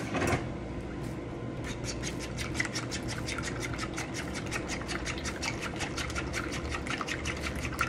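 Eggs being whisked hard in a bowl: quick, regular strokes of the utensil sloshing through the liquid and clicking against the bowl, starting about a second and a half in. A short clatter comes at the very start.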